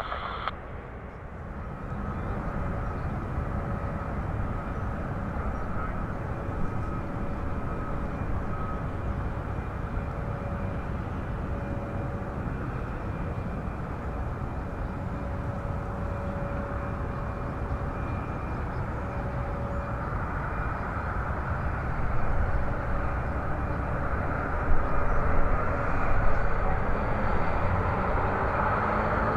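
Convair CV-580's Allison 501 turboprop engines on approach: a steady drone with a held whine, growing louder over the last several seconds.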